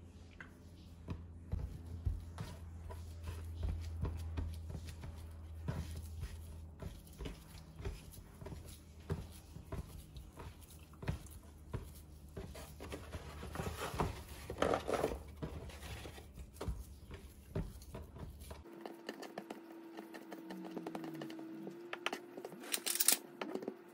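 Small knocks, taps and squishing of kitchen prep: hands working raw beef mince on a wooden cutting board and setting a seasoning bottle down, over a low hum.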